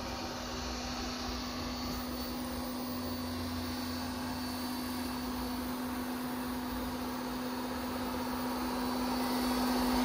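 Bissell SpinWave robot vacuum running: a steady motor hum with one constant low tone, getting louder over the last couple of seconds as it drives right up to the microphone.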